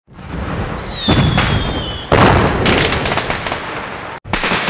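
Fireworks and firecrackers going off: a thin whistle sliding slightly down in pitch, over a rapid crackle of bangs. The loudest bang comes about two seconds in, and there is a brief break near the end.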